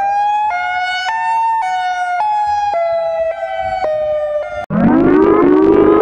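Outdoor tornado warning siren sounding a steady wail whose pitch shifts in small steps about twice a second. About three-quarters of the way in it cuts off sharply, and a lower-pitched, rougher-sounding altered version of the same siren winds up in its place.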